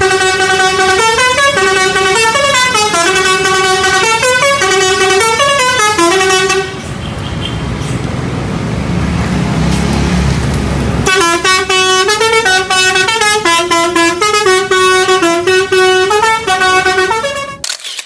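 A multi-note 'telolet' musical horn playing a repeating tune of stepping pitches, loud. About seven seconds in the tune gives way to a few seconds of rushing rumble as the train's coaches pass, then the horn tune starts again about eleven seconds in and cuts off abruptly near the end.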